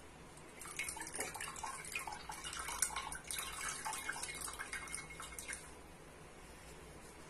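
Wet muslin cloth squeezed by hand over a bowl, herbal liquid dripping and splashing into it in a quick run of small splashes; it starts about half a second in and stops a little after five seconds.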